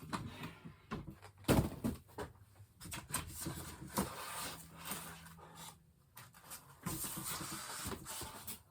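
Boxed ceiling fan blades being handled and shifted about: a series of knocks and clicks, then a longer scraping, rustling slide about seven seconds in.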